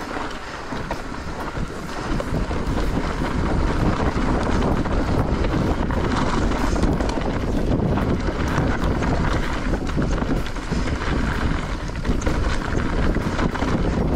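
Electric mountain bike riding fast down a steep dirt trail: wind rushing over the camera microphone, with knobby tyres rolling on dirt and frequent clicks and rattles from the bike over the rough ground.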